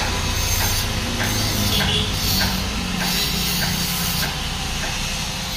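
Handheld power tool running steadily on metal, a constant buzz and hiss with faint ticks about every half second.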